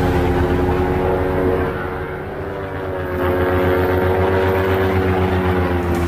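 Paramotor's Vittorazi Moster 185 single-cylinder two-stroke engine and propeller running in flight, easing off for about a second, roughly two seconds in, then picking up again.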